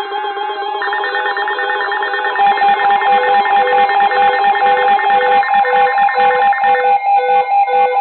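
Electronic emergency alert tones from several weather-alert receivers sounding at once: a steady high tone with beeps repeating over it. About two and a half seconds in, a faster rhythmic pulsing joins and the sound gets louder.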